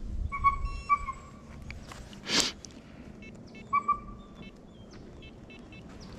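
Hounds baying on a deer chase: a few drawn-out bays near the start and again about four seconds in. A brief harsh sound cuts across about two and a half seconds in.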